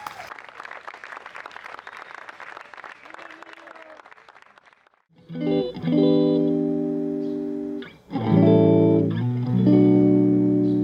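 Audience applause dying away, then an electric guitar through effects strikes slow chords about five seconds in, each left to ring for a couple of seconds before the next. These are the opening chords of the next song.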